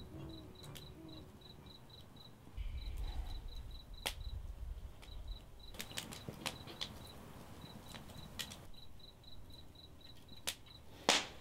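Crickets chirping steadily at about five chirps a second, over the sharp pops and crackles of a wood fire burning in a fire pit, with the loudest pop just before the end. A low rumble swells for a couple of seconds about three seconds in.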